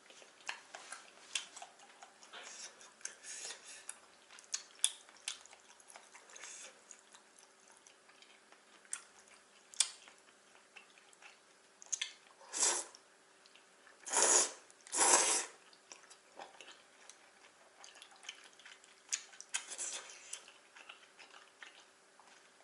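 Close-miked eating of jajangmyeon: wet chewing with many small mouth clicks, and three louder noisy slurps of the noodles between about 12 and 15 seconds in.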